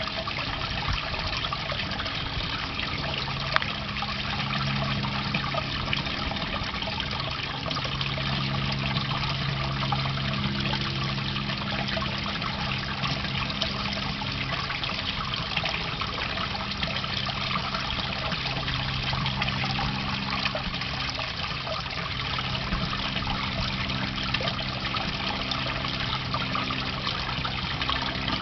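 Water trickling and splashing steadily into a garden pond, with a low hum underneath that drops out now and then.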